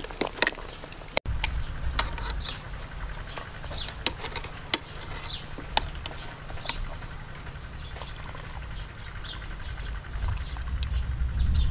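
Metal tongs clinking against an aluminium stockpot, with broth splashing and dripping as a whole boiled black chicken is lifted out. Underneath is a steady low wind rumble from about a second in, with faint bird chirps.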